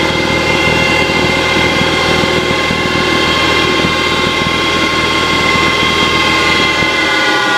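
CNC-converted Grizzly G0602 lathe running under G96 constant surface speed control, its spindle drive giving a steady whine of several tones over a low hum. Near the end the hum drops away and the whine starts to fall in pitch as the control changes spindle speed.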